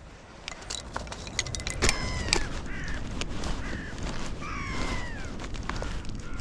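Birds calling, several drawn-out falling calls about two seconds apart. Under them are sharp clicks and scrapes of fishing tackle being handled at the water's edge.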